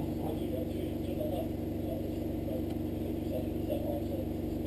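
Air compressor running with a steady, even hum.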